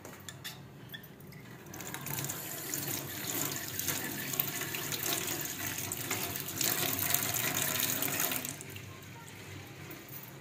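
Tap water running into a stainless-steel sink as hands are washed under the stream. It starts about two seconds in and shuts off about eight seconds in.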